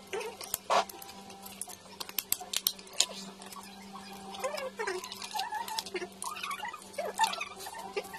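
A cooked crab's shell snapping and cracking as it is broken apart by hand, in many sharp clicks, with wet, squeaky mouth sounds of sucking and chewing crab meat.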